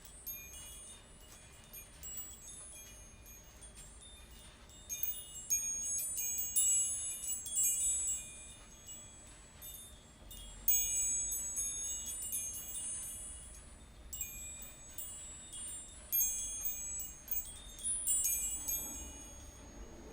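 Wind chimes played in a sound bath: many light, high, ringing strikes that overlap and come in waves, thickening about a quarter of the way in and again around halfway.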